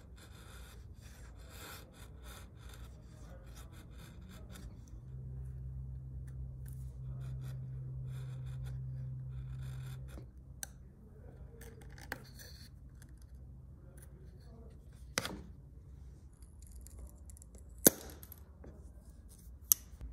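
Workshop handwork: a run of light, quick scraping or rubbing strokes, then a steady low hum for about five seconds, then a few sharp clicks or taps, the two loudest near the end.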